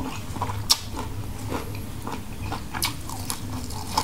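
Close-up wet chewing and mouth clicks of a person eating grilled squid and raw greens, with scattered sharp smacks, the loudest about three-quarters of a second in. A steady low hum runs underneath.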